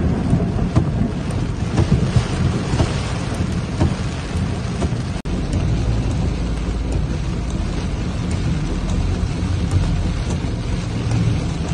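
Torrential tropical rain hitting a car's roof and windshield, heard from inside the moving car: a dense, steady hiss of rain over a low rumble, with the sound cutting out for an instant about five seconds in.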